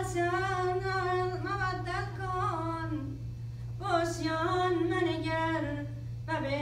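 A woman's solo voice chanting unaccompanied in long, wavering held notes, pausing about three seconds in and then going on. A steady low hum sits underneath.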